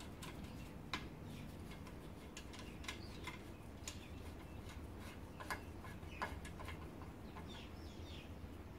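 Faint, scattered metallic clicks and ticks of spoke nipples being spun finger-tight onto new spokes in a motorcycle wheel, the spokes tapping against each other and the rim.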